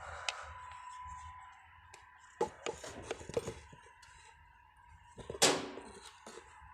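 Scattered light metallic clicks and knocks of tools and parts being handled on a truck's fuel injection pump, with one louder knock about five and a half seconds in.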